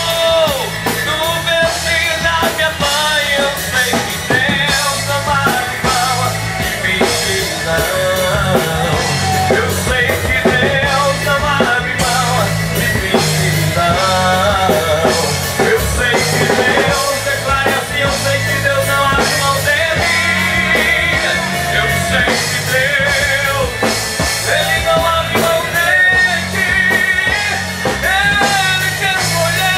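A live rock band playing, with a singer's voice over drums, bass and guitar.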